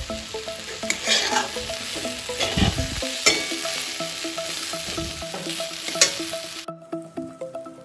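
Chopped vegetables and soya chunks frying and sizzling in a metal kadai, stirred and scraped with a metal spatula in repeated strokes. The sizzle cuts off abruptly near the end.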